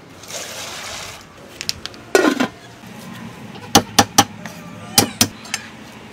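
A soft hiss, then a heavy thud about two seconds in, followed by six sharp knocks on a thick wooden chopping block in two groups of three, as garlic and lemongrass are handled on it.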